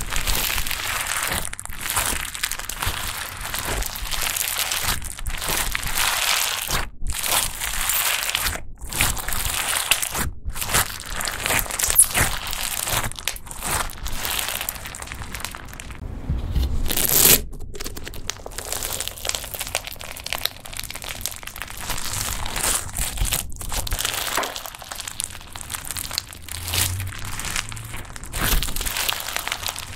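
Clear slime loaded with foam beads being squeezed and stretched by hand: a continuous crunching and crackling, with a few brief pauses and a louder crunch about seventeen seconds in.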